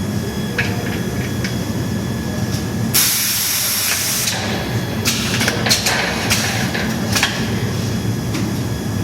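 Diamond segment welding machine for gang-saw blades running with a steady hum. About three seconds in, a loud hiss lasts just over a second, and several sharp clicks follow.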